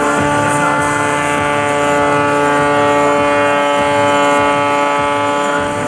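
MXS-RH aerobatic plane's 370-horsepower Sky Dynamics engine and propeller running at steady high power while it holds a hover on its propeller, giving a loud, even drone at one unchanging pitch.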